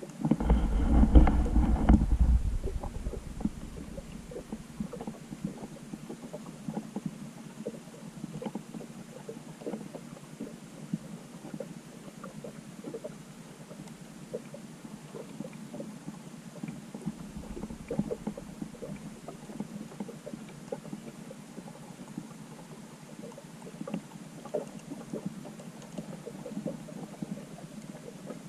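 Muffled underwater sound through a GoPro's waterproof housing, submerged over seagrass: a loud low rumble in the first two seconds or so, then a steady low noise with scattered small clicks and crackles.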